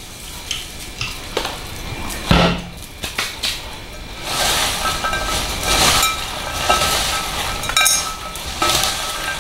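Popped popcorn being tossed and mixed by hand in a glass bowl to spread the salt through it: a dry rustle of kernels with small clicks and knocks against the glass. A few scattered clicks and a knock come first, and the rustling grows denser from about four seconds in.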